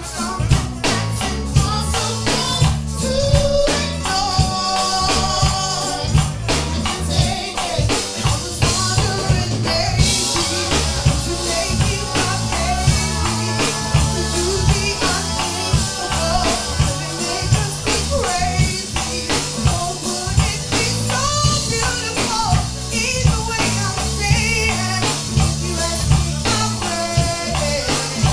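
Background music with a steady drum beat and singing.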